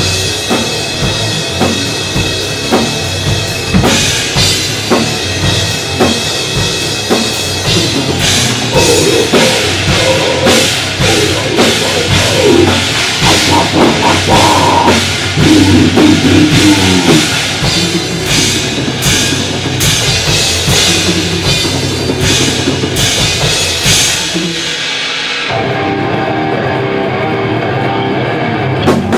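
Goregrind band playing at rehearsal: fast, dense drum-kit blast beats under loud heavy-metal music. Near the end the cymbals drop out, leaving a steadier held sound.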